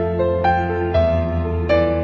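Soft background music: a piano-like keyboard melody with a new note struck about every half second over sustained low chords.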